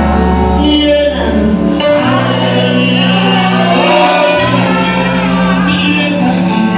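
Choir singing gospel music over sustained low accompaniment, several voices holding and bending notes.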